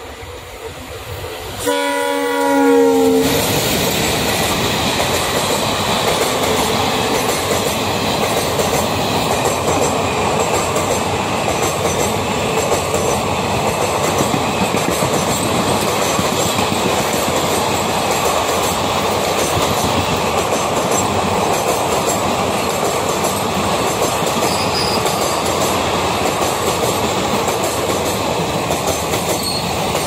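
Horn blast of twin ALCO WDG-3A diesel locomotives, about a second and a half long, near the start; then the express train running past at speed, a steady loud rush of wheels and coaches with clickety-clack over the rail joints.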